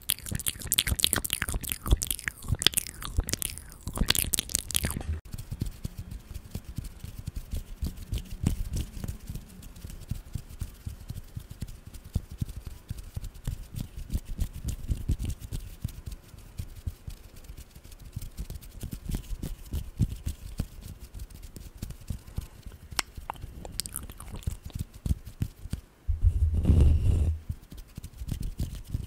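Close-miked ASMR mouth sounds, a run of clicks right at the microphone, which give way about five seconds in to finger flutters: fingers fluttering against a foam-covered microphone in a soft, continuous crackling rustle. Near the end comes a louder low rumble on the mic lasting about a second.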